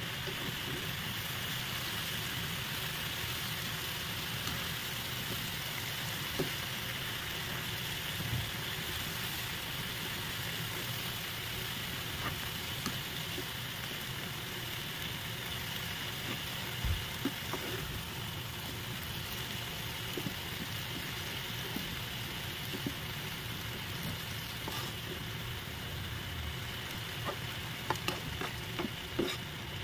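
Marinated beef and enoki mushrooms sizzling steadily in a nonstick frying pan as the sauce bubbles, with occasional clicks of tongs against the pan as they are tossed, more of them near the end.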